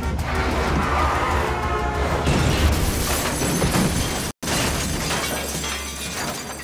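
A car crashing through a glass shop window, glass shattering from about two seconds in, over film score music. The sound drops out for an instant partway through, then the crash and music fade.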